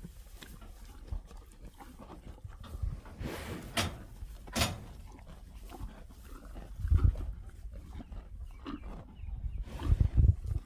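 Cows eating: irregular crunching and munching of feed, with a few louder noisy bursts about a third of the way in and some low thumps near the end.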